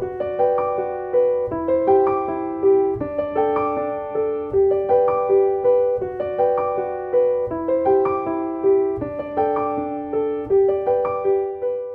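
Background piano music: a gentle, repeating broken-chord figure of struck notes, about two a second, each dying away.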